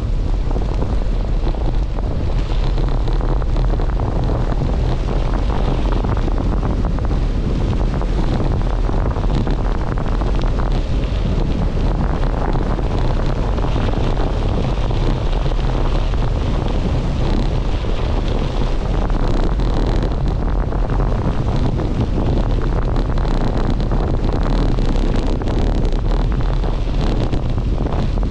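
Wind buffeting a camera microphone, a steady loud rumble with hiss.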